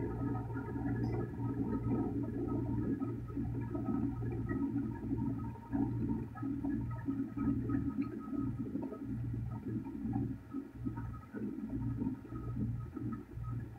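Metal fidget spinner spinning on a wooden tabletop: a steady low hum with a fluttering rattle from the spinner running against the wood.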